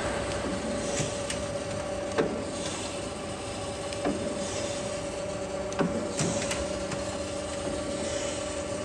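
Freeport SGS-1632AHD surface grinder running under its automatic cycle: a steady hum with a sharp knock and a swish about every two seconds.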